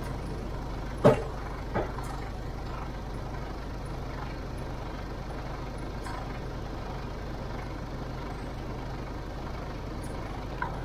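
Mercedes-Benz Actros truck's diesel engine idling steadily, with a sharp knock about a second in and a smaller one just after.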